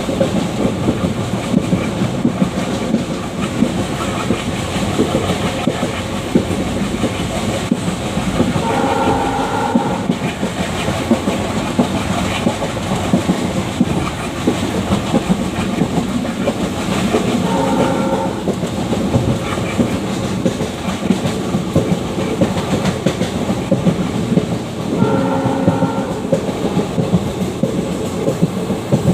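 WDG3A diesel locomotive's 16-cylinder ALCO engine chugging under way, with the coach's wheels clattering over the rails, heard from inside a coach close behind the engine. The locomotive's horn sounds three short blasts, a third of the way in, in the middle and past three-quarters.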